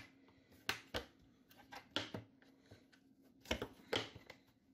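Hard plastic parts of a white plastic shelf rack clacking and knocking as they are handled and pushed together during assembly: a handful of sharp clicks, scattered about a second apart, with a cluster of them near the end.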